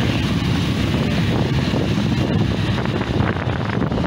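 Motorcycle running while being ridden, with wind rumbling on the microphone; a dense, steady low rumble.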